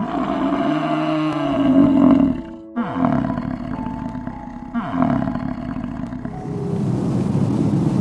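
American bison bellowing: three long, deep roars one after another, each one to two and a half seconds, with the pitch dropping at the end of each.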